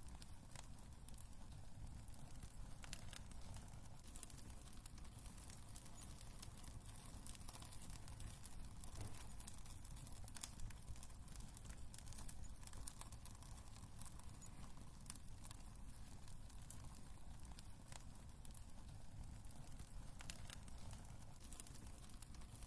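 Wood fire crackling in a fireplace: scattered sharp pops and snaps over a low, steady rumble.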